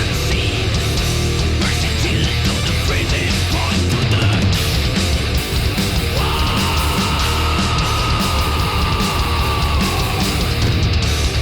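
Background heavy metal music with distorted electric guitar; a held lead note comes in about six seconds in.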